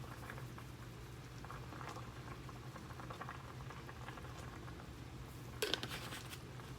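Garlic powder being shaken from its container onto chicken in a pot: faint scattered shakes, with a louder run of quick shakes near the end, over a steady low hum.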